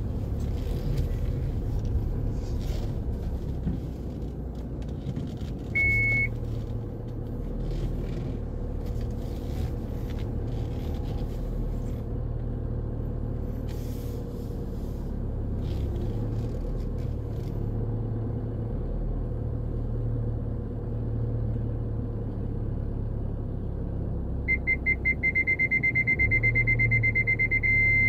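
Car engine idling with a low steady hum while the car creeps slowly into a parking space. Its parking sensor gives a single beep about six seconds in, then near the end beeps rapidly and runs into a continuous tone: the car is very close to an obstacle.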